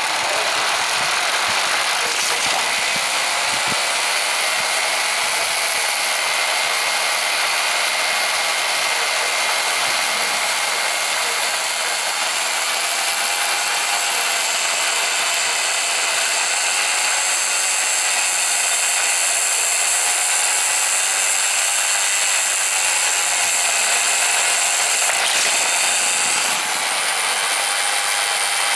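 Greyhound track's mechanical lure running along its rail: a steady, loud mechanical whirr and grinding with a faintly wavering whine.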